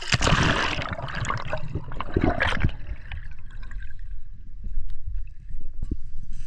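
Water splashing and rushing as a swimmer and camera go under the surface, then muffled underwater sound: a low rumble with scattered faint clicks and bubbling.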